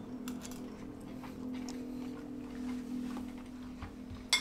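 Faint clicks of a spoon and chopsticks against plates during eating over a steady low hum, with one sharper clink just before the end.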